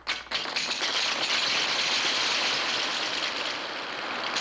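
Hundreds of wooden mousetraps snapping shut and ping-pong balls bouncing off them as a chain reaction spreads across the floor: a dense clatter of rapid clicks that starts suddenly and keeps going.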